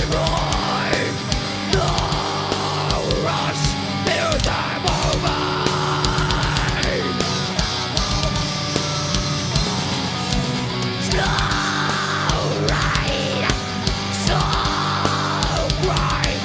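Live groove metal band playing at full volume: heavily distorted electric guitars over drums, with a fast, steady kick-drum beat.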